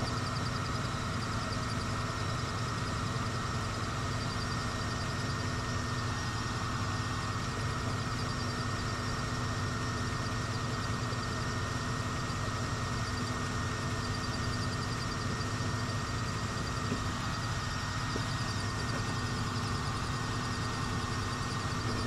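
1995 Ford F-150 engine idling steadily, running on without stumbling or cutting out while the cleaned ignition connector is shaken: a sign that the no-spark fault, caused by a dirty connector, is cured.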